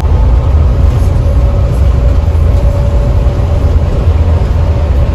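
A bus cruising at speed, heard from inside the cabin: a steady, heavy low rumble of engine and road noise, with a faint steady whine.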